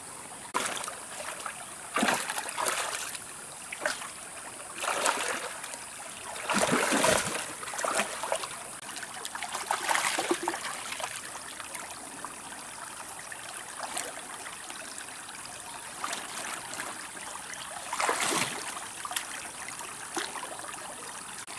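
Stream water trickling, broken by several brief splashes, the loudest about seven seconds in.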